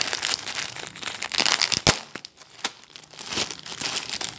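Packaging crinkling and rustling as it is handled during unboxing, with one sharp click about two seconds in.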